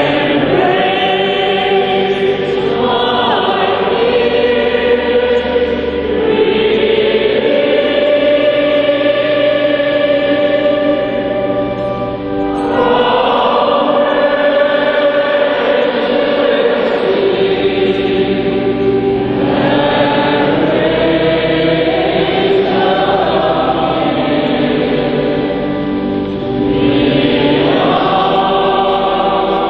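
A congregation and choir singing a slow hymn in long held phrases, with short breaks for breath about twelve seconds in and again near twenty-six seconds.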